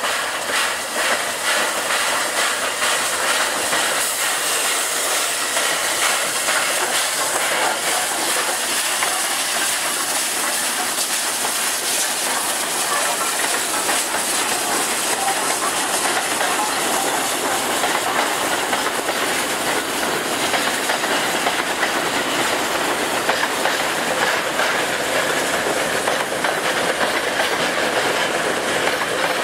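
A Jianshe (JS) class 2-8-2 steam locomotive hauling a heavy train of loaded coal hopper wagons past at close range. Steam hisses steadily and the wagons' wheels clatter over the rail joints.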